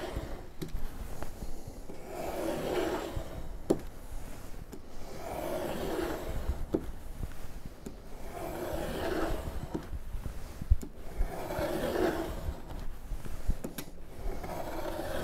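Snap-off utility knife blade scoring through thick binder's board in repeated passes: a series of scraping strokes, each about a second long, one every few seconds, with a few sharp clicks between them. The board is being cut by many passes of the knife rather than in one stroke.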